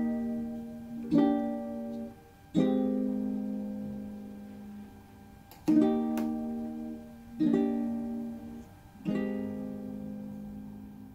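Background music: a plucked string instrument sounding five chords, each ringing out and fading before the next.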